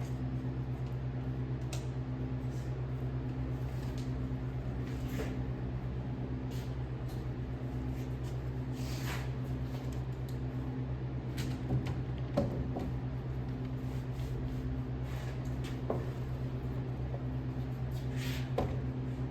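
Steady low mechanical hum with a regular pulse, with a few light knocks and clicks over it, the sharpest a little past the middle.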